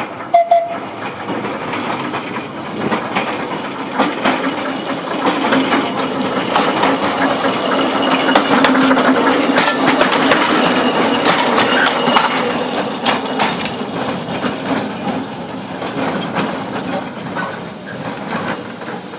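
Seaton Tramway narrow-gauge electric tram passing close by: wheels clicking on the rails over a steady low hum. The sound builds to its loudest as the tram goes past, then fades. A brief high note sounds about half a second in.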